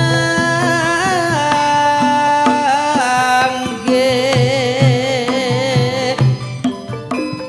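Javanese gamelan music: a female sinden sings long, wavering held notes over regular kendang drum strokes and ringing metallophone tones.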